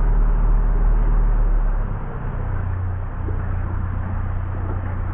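A narrowboat's diesel engine ticking over with a steady low hum that changes note about two seconds in, over a steady hiss.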